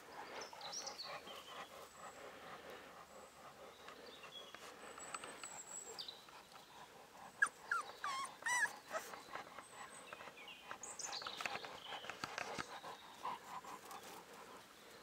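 Cane Corso puppy whimpering: a few short, high, wavering cries, loudest about halfway through.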